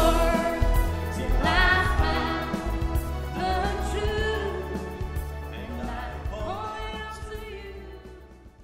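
Background song with a singing voice over a steady bass line, fading out toward the end.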